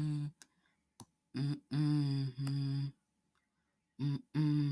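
A person humming to themselves in short, steady held notes, a few in a row, then a pause and more humming near the end. Two brief clicks come about half a second and a second in.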